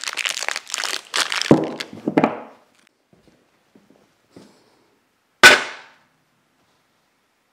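Cardboard bearing packaging crinkling and rustling as it is handled. About five and a half seconds in comes one loud, sharp clank that dies away quickly.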